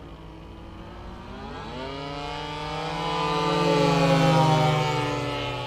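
Two radio-controlled model airplanes flying overhead, their engines buzzing. One engine's pitch climbs about two seconds in; the sound is loudest around four seconds, then drops a little in pitch and fades as the plane passes.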